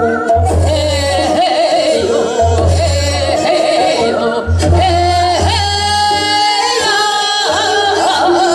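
Two women singing Seodo sori, the Korean folk singing of the northwestern provinces, in wavering, ornamented voices through microphones. Amplified backing music with a recurring low beat plays under them.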